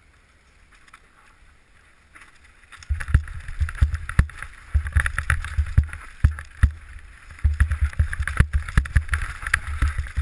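Downhill mountain bike descending a rough dirt trail: quiet for the first few seconds, then about three seconds in a loud low rumble of wind buffeting the microphone sets in, with frequent sharp knocks and rattles as the bike hits bumps.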